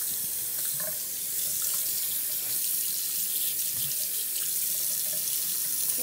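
Bathroom sink tap running steadily, its stream splashing into the basin.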